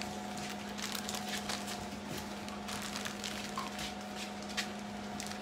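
Plastic zipper freezer bag crinkling and crackling in short, scattered clicks as hands press ground beef flat inside it, over a steady low hum.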